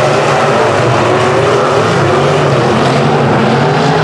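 Semi-late model dirt-track race cars' V8 engines running at speed together: a loud, steady engine drone whose pitch wavers slightly as the cars pass.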